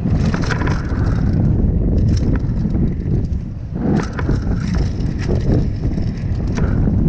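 Mountain bike rolling fast down a dry, loose dirt and gravel track: tyres crunching over the surface and the bike clattering with sharp knocks over bumps, under a steady low rumble.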